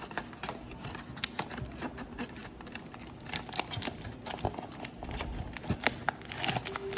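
Cardboard 2022-23 Panini Prizm Basketball mega box being handled and opened: an irregular run of small clicks, taps and scrapes of card stock as the flaps and insert are pulled and the box is turned over.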